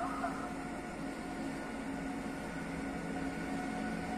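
PKP Intercity EU160 Griffin electric locomotive drawing into the station: a steady electric hum with several held tones over a hiss.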